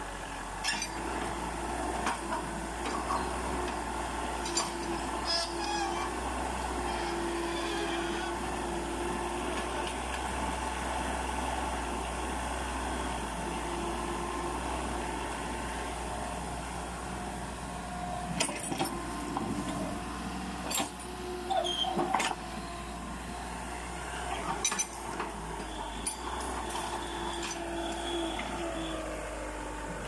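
Mini excavator's diesel engine running steadily while its hydraulics work the boom and bucket, the pitch shifting as they take load, with scattered sharp knocks.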